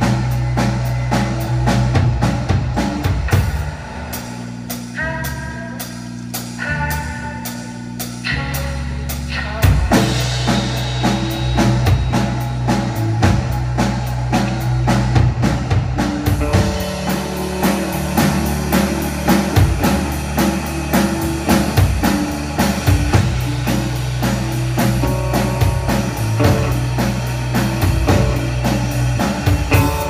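Live rock band playing: drum kit, electric bass and electric guitar. The band drops to a quieter passage about four seconds in and comes back in full, with a cymbal crash, about ten seconds in.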